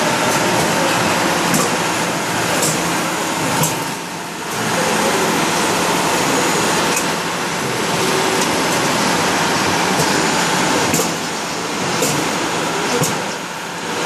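Steady loud din of a busy exhibition hall with a few sharp clicks now and then.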